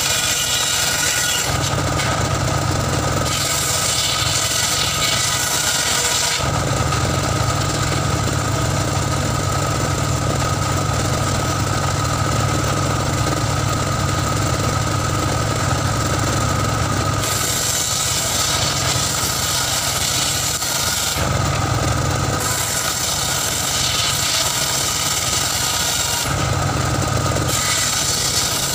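Homemade engine-driven circular saw bench running steadily while wooden planks are ripped through its blade. Its sound shifts every few seconds as the wood is fed in and drawn back.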